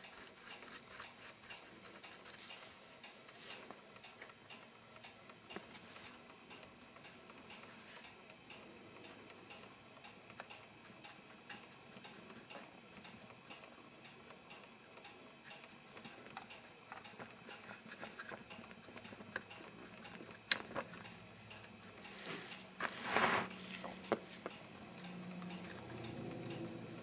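Faint, irregular small clicks and taps of a paintbrush working paint around the exhaust and fan grilles of a plastic model locomotive shell. One sharper click comes about two-thirds of the way through, and a brief louder scratchy brushing sound follows a little before the end.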